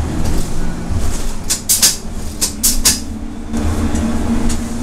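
Inside a 2012 Nova LFS city bus under way: steady engine and road rumble, with six short, sharp hissing sounds in quick succession in the middle, then a steady hum coming in after about three and a half seconds.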